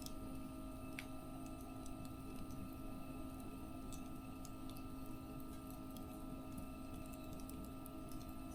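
Faint crackling of a wood fire: scattered small irregular pops and ticks over a steady low hum.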